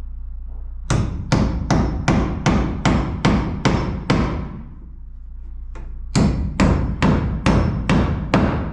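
Hammer driving nails, about two or three ringing blows a second: a run of about nine, a short pause, then another run. This is the sound of electrical boxes being nailed in for outlets and switches.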